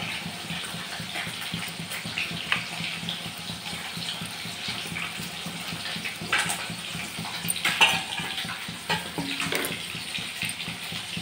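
Catla fish pieces frying in hot mustard oil: a steady sizzle with scattered sharp pops and clicks, the loudest about eight seconds in.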